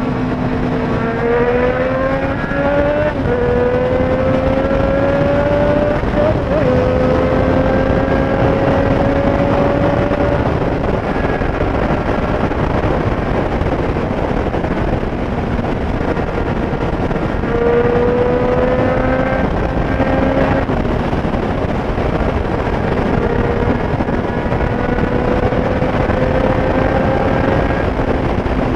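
Triumph Street Triple 765 S inline-three engine pulling away and accelerating through the gears, its pitch climbing and then dropping at each upshift, several times over. A steady rush of wind and road noise runs underneath, and the engine eases off for a stretch in the middle.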